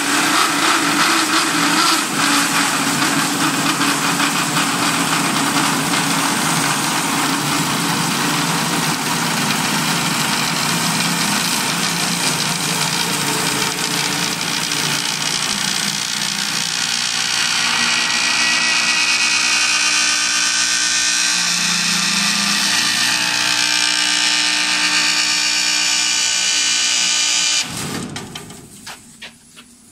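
Automatic wood copy lathe turning a wooden handle: the spinning blank and moving cutter head shear wood with a loud, steady whine and hiss of chips, its tone changing about halfway through. Near the end the cutting stops abruptly and the noise dies away, with a few knocks as the finished handle drops out.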